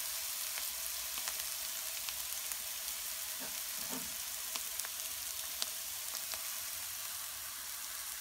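A vegetable filling of onion, leek, grated carrot and zucchini with suet sizzling in a frying pan. It makes a steady hiss with scattered faint crackles, and there are a couple of soft knocks around the middle.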